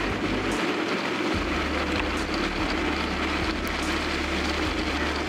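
Steady rushing noise of a mountain bike running fast down a dirt forest trail: wind on the handlebar-mounted camera's microphone mixed with the tyres rolling over dirt.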